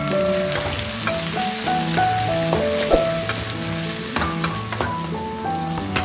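Chopped onions, tomatoes and green chillies sizzling in oil in a steel kadai, stirred with a metal spatula that scrapes and clicks against the pan now and then. Background music with a stepping melody plays underneath.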